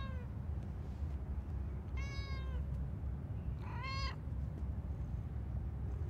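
Long-haired ginger cat meowing: two short meows, about two and four seconds in, with the tail end of an earlier meow at the very start.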